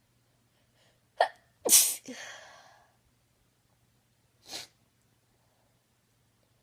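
A woman's induced sneeze: a sharp catch of breath, then one loud sneeze that trails off over about a second. About three seconds later comes a short, sharp breath sound.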